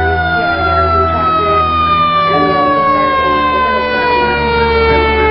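Fire ladder truck's siren winding down: one steady tone slowly falling in pitch, over the low rumble of the truck's engine as it approaches.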